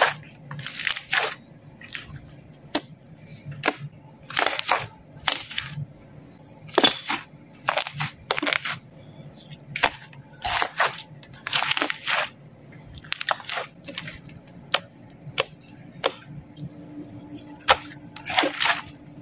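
Slime being squeezed and pressed by hand, giving irregular crackling pops and squishes, a few a second.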